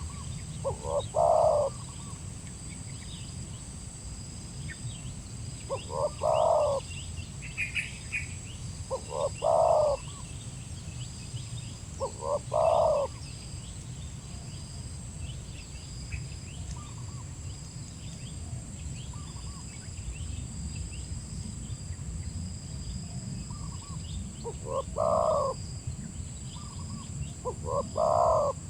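Spotted dove (tekukur) cooing: six short phrases of a few notes each, spaced a few seconds apart with a long pause in the middle. Faint chirping of small birds, a steady high-pitched whine and a low rumble sit underneath.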